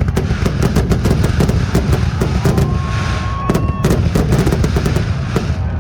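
Fireworks finale: a dense, rapid barrage of overlapping aerial shell bursts and crackle, thinning out right at the end.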